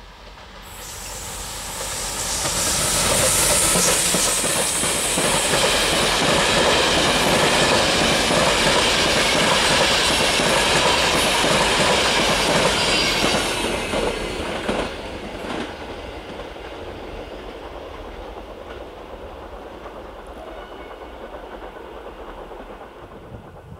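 Siemens HellasSprinter (OSE class 120) electric locomotive and its InterCity passenger coaches passing at speed. The rushing noise of wheels on rails swells over the first few seconds, stays loud, then falls away from about 14 seconds in as the train moves off.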